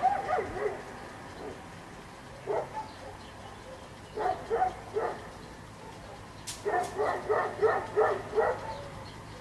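A dog barking in short, high-pitched yaps: a couple about two and a half seconds in, three more around the middle, then a quick run of about seven in a row near the end. A sharp click comes just before the run.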